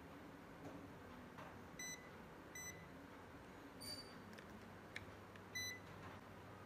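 Handheld digital multimeter (UNI-T UT136C+) beeping as its buttons are pressed to change its range or function: three short, identical high beeps, plus one higher-pitched beep about four seconds in, with faint clicks of handling.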